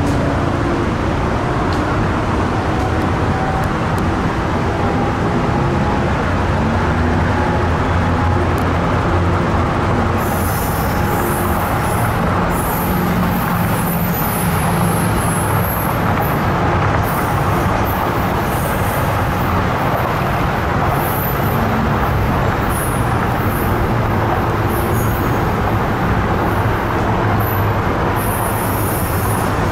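Tri-Rail double-deck commuter train pulling away from the platform: a steady low diesel engine drone with a faint tone rising slowly over the first several seconds. From about ten seconds in, faint high-pitched squeaks come from the wheels on the rails as it rolls off.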